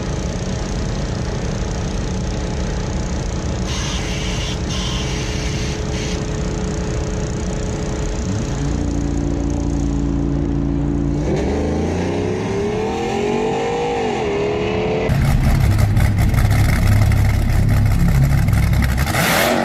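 A Ram pickup's V8 engine running at a drag strip: a steady rumble, then the engine revs up and back down partway through. A louder, harsher noise takes over for the last few seconds.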